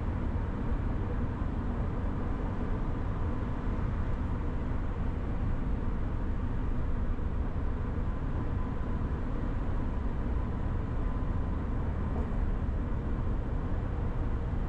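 Steady road noise inside a car driving on a freeway, strongest low in pitch, with no sudden events.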